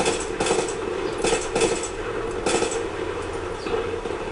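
First-person shooter game sound: several short bursts of gunfire, mostly in the first three seconds, over a steady hum of battle ambience.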